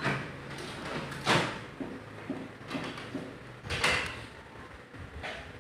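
Several clunks and knocks of a photocopier's parts being handled, the loudest about a second and a half in and another near four seconds in, over a low hum that stops partway through.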